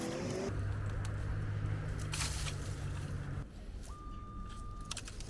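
Metal detector audio tones: a steady low drone for about three seconds, then after a short gap a single steady higher beep about a second long.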